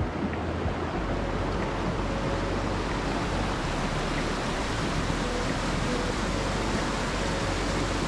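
A rocky creek running over boulders and small cascades: a steady, even rush of water.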